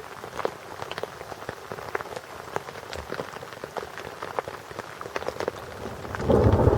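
Rain during a thunderstorm, with individual heavy drops striking a surface close by as sharp, irregular ticks. Near the end a loud, low rumble of thunder breaks in suddenly.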